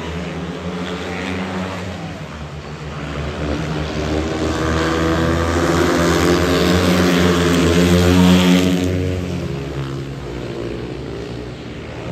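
Speedway bikes' single-cylinder 500cc methanol engines running flat out as the riders race past. The sound grows louder to a peak about eight seconds in, then falls away.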